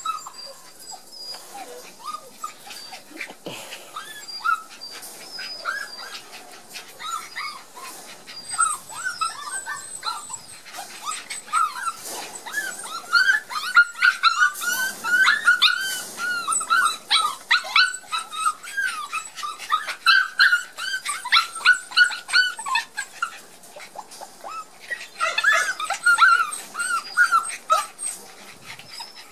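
Border collie puppies whining: many short high-pitched calls that rise and fall, sparse at first, then coming thick and fast through the middle and again near the end.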